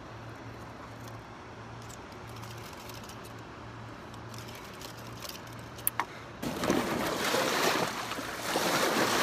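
Small waves washing against a rocky shoreline: a quiet hiss of water at first, then from about six and a half seconds in a much louder rush as waves break in over the rocks.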